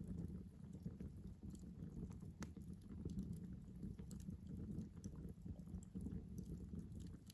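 Wood campfire burning, with a low steady rumble and scattered sharp crackles and pops.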